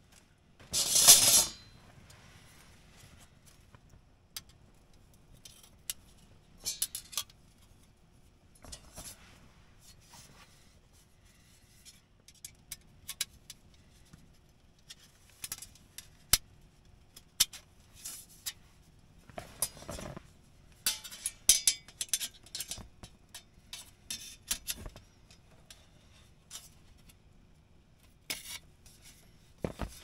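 Gear being handled: scattered light clicks, clinks and rustles, with a short loud rush of noise about a second in.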